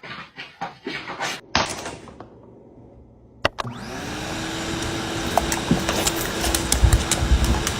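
A few short knocks and clicks, then about three and a half seconds in a motor starts up and runs with a steady hum and hiss, scattered clicks over it.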